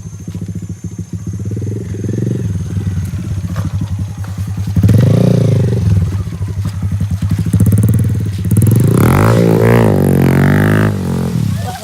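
Honda MSX125's single-cylinder engine running, revving up about five seconds in and again near the end, where its pitch rises and falls several times.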